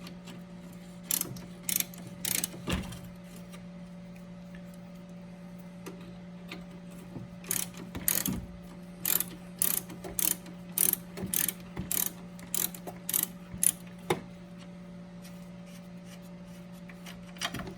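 A 1/2-inch ratchet with a 14 mm socket clicking in short runs as the nuts on top of a front strut mount are loosened, most densely through the middle, over a steady low hum.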